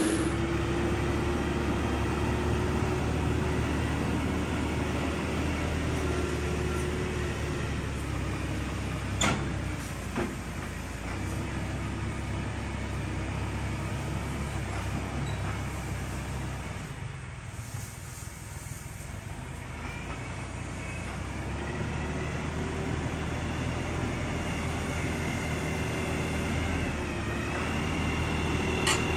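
New Holland Workmaster 75 tractor's diesel engine running steadily as it drags a box blade over the gravel. It fades a little past the middle as the tractor moves off, then grows louder as it comes back, with two sharp knocks about a third of the way in.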